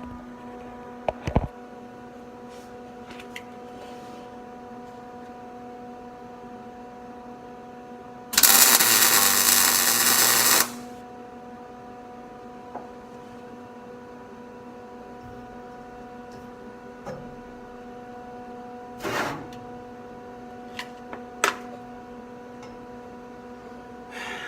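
Welding arc crackling in one loud burst of about two seconds, tack-welding the steel roll-cage main hoop, over a steady electrical hum. A few short clicks and knocks come before and after it.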